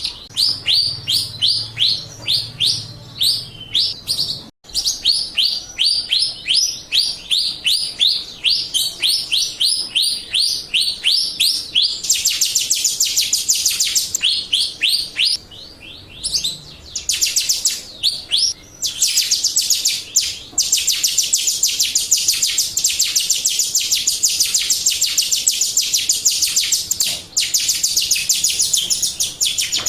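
Jalak Rio starling singing a rapid string of short, rising chirps, about four or five a second at first. From about twelve seconds in it switches to a faster, denser trilling chatter, broken by a few brief pauses.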